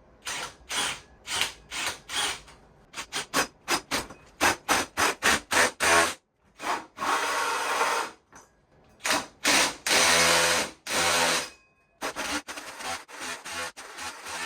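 Power drill with a hole saw cutting up into the ceiling boards. It goes in a quick series of short trigger bursts for the first six seconds, then two longer steady runs of a second or two each.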